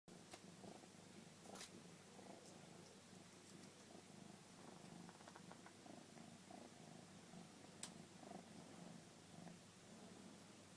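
A Siamese kitten purring softly and steadily, with a few sharp clicks now and then.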